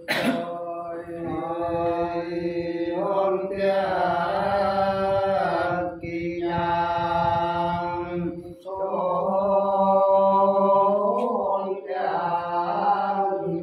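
Unaccompanied Sán Dìu soọng cô folk singing: a voice holds long, drawn-out, nearly level notes in phrases of a few seconds, with short breaks between them. A brief sharp click comes at the very start.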